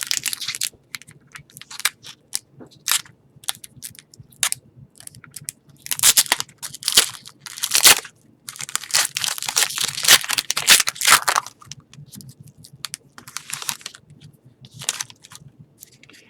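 Foil trading-card pack wrappers crinkling and tearing by hand as packs are opened, with cards handled between the bursts. The rustling comes in irregular bursts and is loudest from about six to eleven seconds in.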